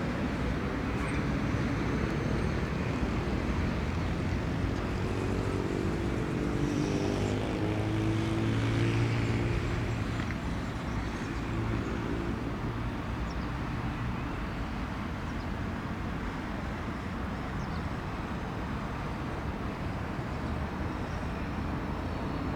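Embraer Phenom 100's twin Pratt & Whitney PW617F turbofan engines running at a distance, a steady jet rumble that swells a little about eight to ten seconds in.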